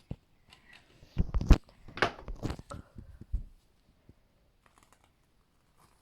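Plastic parts of a toy screen-printing set being handled: a cluster of knocks, clicks and short rustles from about one to three and a half seconds in, then only faint ticks.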